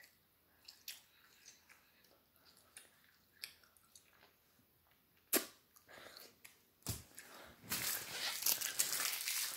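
Faint, scattered wet clicks of a chewy Tootsie Roll being chewed. Near the end there are two sharp knocks and then a few seconds of loud rustling as the boy leans in close to the phone.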